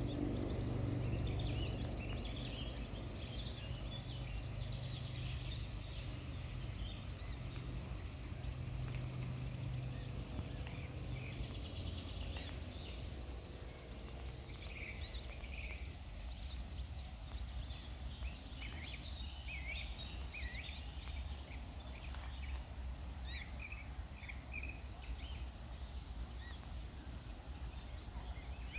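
Songbirds chirping and singing outdoors over a low, steady background rumble. A low steady hum fades out about twelve seconds in.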